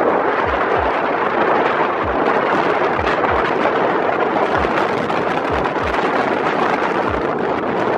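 Steady rush of wind and road noise from a motorcycle on the move, with irregular low thumps.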